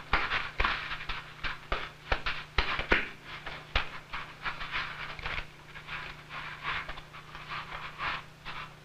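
Lion cubs hissing and spitting in short, irregular bursts, a few each second, with occasional knocks as they scuffle. Defensive, aggressive reactions to unfamiliar objects.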